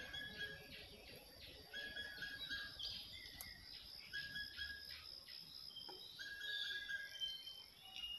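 Birds singing faintly: a repeated pair of short, even-pitched notes every couple of seconds, with quicker, higher chirps from other birds around it.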